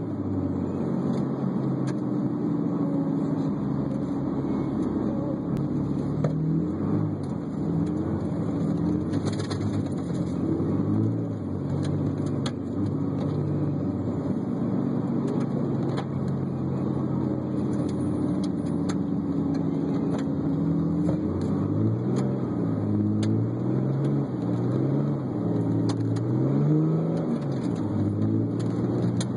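Diesel dually pickup truck's engine heard from inside the cab, revving up and easing off again and again, over steady tyre and road noise.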